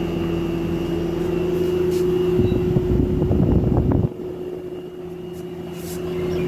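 Outdoor unit of a Lloyd 1.5-ton inverter split AC running with a steady humming tone, the defect complained of since installation that two service visits have not cured. About two and a half seconds in, a rumbling noise rises over the hum and cuts off suddenly about four seconds in.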